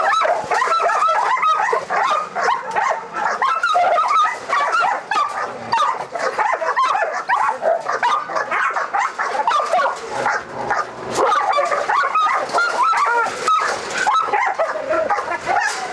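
Dogs barking without pause, a dense run of short high calls: a caged pit bull–pointer mix lunging and baring its teeth through steel kennel bars at another dog by its food bowl, a show of aggression over food in its kennel.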